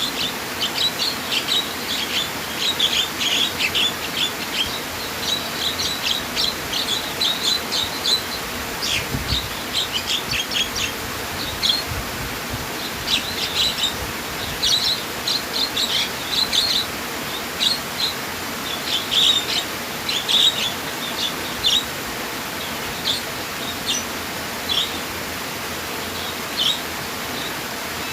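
Songbirds chirping in quick short notes over a steady rush of flowing water; the chirping is busy for most of the stretch and thins out near the end.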